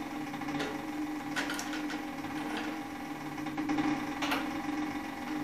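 Cowboy CB3200 heavy-duty walking-foot sewing machine running slowly through thick leather belt: a steady hum with a few sharp clicks as stitches are driven, the machine creaking a little.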